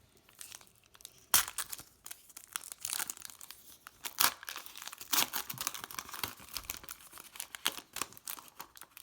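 Trading-card pack wrapper being torn open and crinkled, in a series of irregular sharp crackles with two louder rips about a second and four seconds in.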